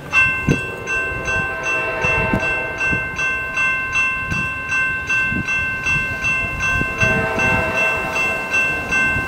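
Railroad grade crossing warning bell starting up and ringing steadily at about two and a half strikes a second, signalling that the crossing has activated for an approaching train. About seven seconds in, a second, lower set of ringing tones joins it.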